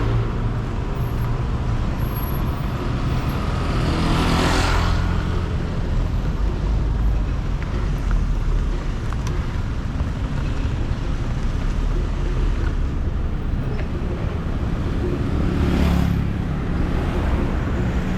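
Road traffic with a steady low engine rumble. Vehicles pass close by twice, about four seconds in and again near the end, each a brief rising and falling rush of noise.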